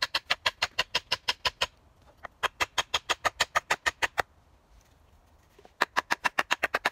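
Rapid, evenly spaced knocks, about eight a second, in three runs of roughly two seconds with short pauses between: a hatchet being knocked to seat its head on a newly carved green-wood handle.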